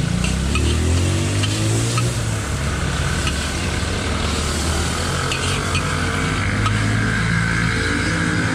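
Egg and chopped vegetables sizzling in a large steel wok while a metal spatula stirs and scrapes with light, scattered clicks. Under the sizzle, and louder than it, a motor engine runs with a low hum that shifts up and down in pitch.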